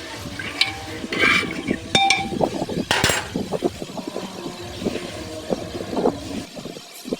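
A spoon stirring chana in a pan, clinking against the metal at first, then a dense run of short rattling knocks that thins out near the end.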